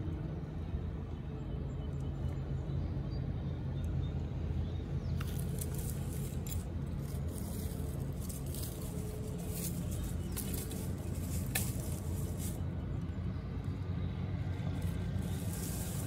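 Dry leaves and twigs crackling and snapping as a Weimaraner roots in the leaf litter and works at a stick, starting about five seconds in, over a steady low rumble.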